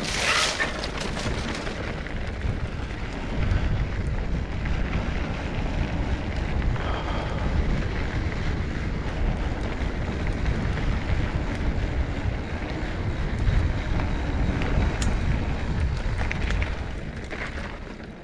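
Wind buffeting the microphone: a steady low rumble with rustling noise above it, dying away near the end.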